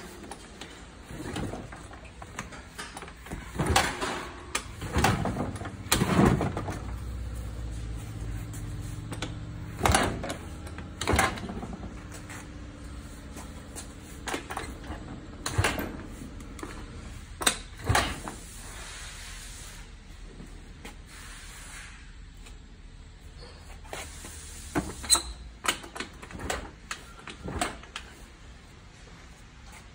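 Honda Lead 100 two-stroke single-cylinder scooter engine being kick-started over and over, a dozen or so clunking strokes of the kick lever turning the engine over at uneven intervals. A low steady hum runs under the kicks for a few seconds near the middle.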